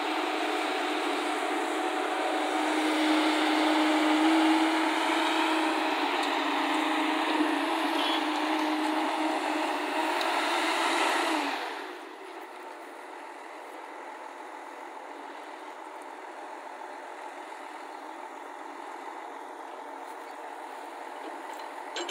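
JCB crawler excavator's diesel engine running hard under hydraulic load while it digs and swings. About halfway through, the sound drops suddenly to a quieter, steady running level.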